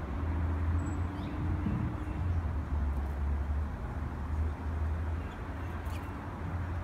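Steady low mechanical rumble with a faint steady hum above it.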